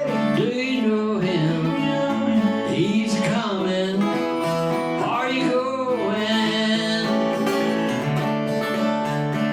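A man singing a bluegrass gospel song to his own acoustic guitar accompaniment.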